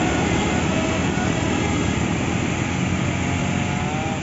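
A heavy diesel vehicle passing close, its engine running with a steady, loud rumble that eases slightly near the end.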